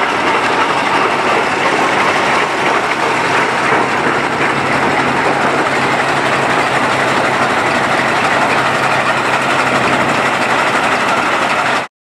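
Aultman & Taylor 30-60 tractor's engine running steadily, a dense mechanical rumble that cuts off suddenly near the end.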